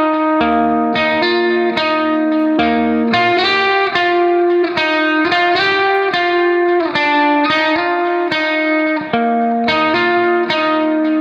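Instrumental background music: a plucked-string, guitar-like melody of evenly spaced picked notes.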